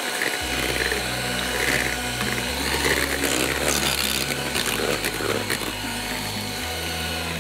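Philips electric hand mixer running, its twin beaters whirring through butter-cake batter in a glass bowl as the vanilla is beaten in.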